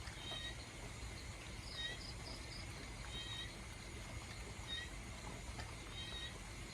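Steady rain at night, with a short, high chirping animal call repeating about every second and a half over it.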